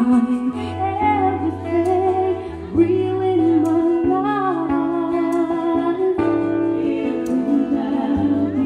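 A woman singing a slow ballad with vibrato into a microphone, accompanied by a strummed acoustic guitar with bass notes that change every second or two.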